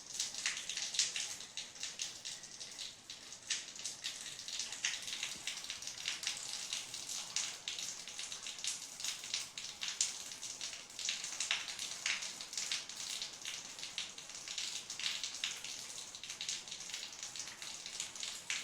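Rain falling: many irregular drops pattering on a surface over a steady hiss.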